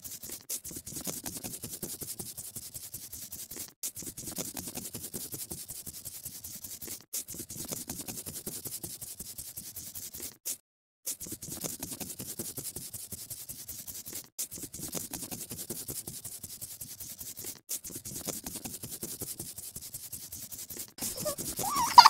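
Scratchy scribbling of colouring strokes on paper, quick back-and-forth rubbing that runs in stretches of about three and a half seconds with brief breaks between them.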